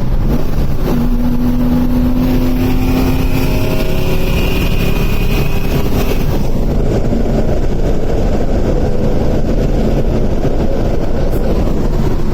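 1980 Dodge Dart's V8 engine and exhaust rumbling steadily as the car drives along the road. A higher steady whine rides over the rumble for the first half.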